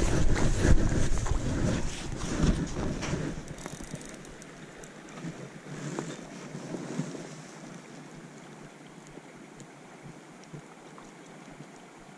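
Wind buffeting the microphone as a low rumble, mixed with short knocks and clicks, for the first three or four seconds, then dying down to a faint steady hiss with an occasional click.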